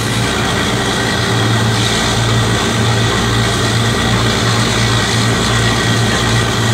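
Truck-mounted water well drilling rig running during a test: a loud, steady engine drone with a low hum that swells and fades.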